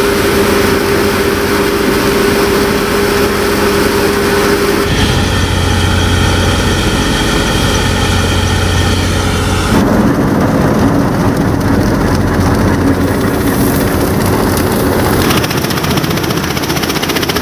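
Tractor-driven grain thresher running under load, a loud steady machine noise of drum, fan and engine. The sound changes abruptly about 5, 10 and 15 seconds in as the shots change.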